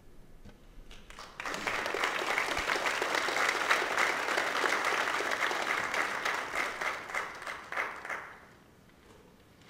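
A congregation applauding at the end of a song. The clapping builds up about a second in, holds steady, then thins out and dies away near the end.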